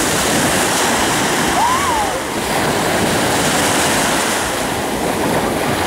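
Ocean surf washing in as a steady rush, with wind on the microphone. A brief high call rises and falls about two seconds in.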